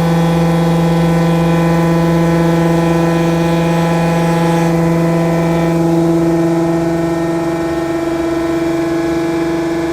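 CNC machining center running a part program after cycle start, its spindle motor giving a steady whine with a hiss above it that drops away about five seconds in.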